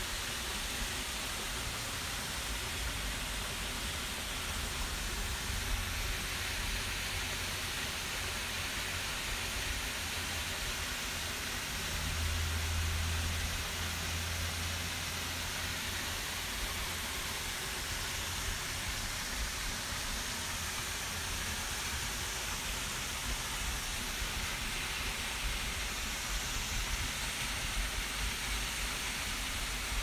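Large waterfall falling into a natural pool, a steady rushing hiss with no change, and a low rumble for a few seconds about twelve seconds in.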